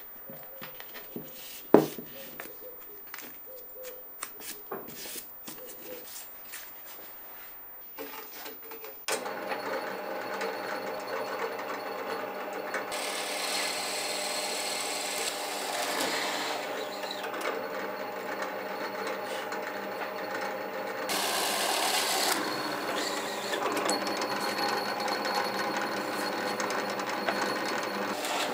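Light clicks and knocks of wood and tape being handled on a bench, with one sharp knock about two seconds in. About nine seconds in, a bench drill press runs with a steady motor hum, and its wide bit bores into plywood in two louder passes.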